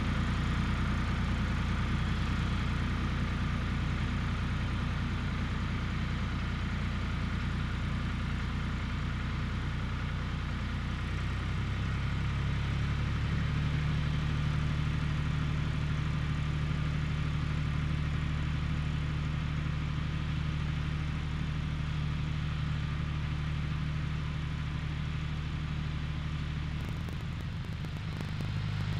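Tractor diesel engine running steadily while pulling a stubble plough through the field, its note shifting about twelve seconds in and then holding.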